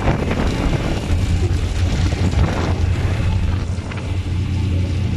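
Wind buffeting the microphone on the open deck of a moving ship, over the steady low drone of the ship's engines.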